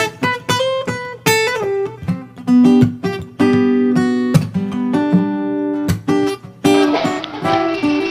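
Background music: acoustic guitar picking single notes and short chords, each note ringing out and fading. Near the end a brighter, noisier wash joins the guitar.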